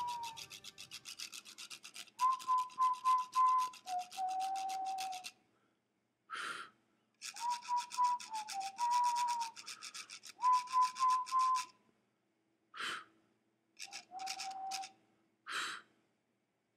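A slow whistled tune in three phrases, each note held and then stepping down, over a fast scratchy rubbing noise. A few short breathy bursts fall in the pauses between the phrases.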